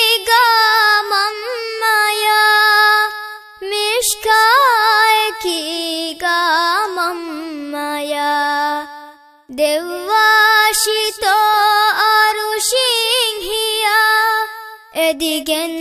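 A young girl singing solo in Dhivehi in a high voice, with wavering, ornamented melodic lines. She breaks off briefly for breath about three seconds in and again about nine seconds in.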